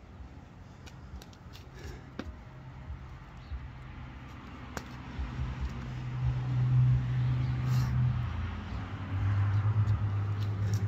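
A motor vehicle's engine hum that swells about halfway through, then drops in pitch near the end, with a few faint clicks before it.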